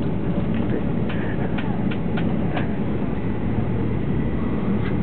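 Steady rumble of a Shinkansen bullet train heard inside the passenger cabin, with a few faint clicks in the first half.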